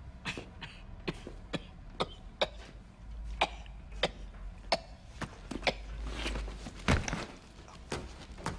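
A man in a coughing fit: a long run of short, harsh coughs at irregular intervals.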